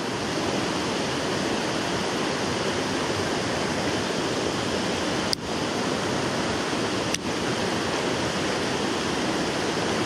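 A rain-swollen mountain stream rushing over a rocky riffle: a steady hiss and roar of flowing water, with two brief clicks a little after halfway.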